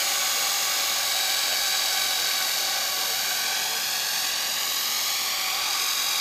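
Electric radio-controlled model helicopter hovering low, its motor and rotor giving a steady high-pitched whine whose pitch wavers slightly.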